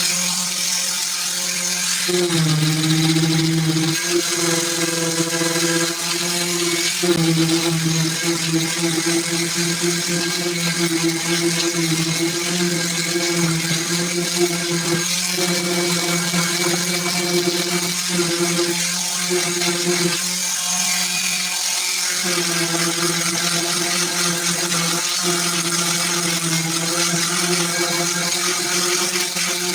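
Power sander running steadily while sanding car body panels for primer: a steady motor whir whose pitch shifts slightly now and then.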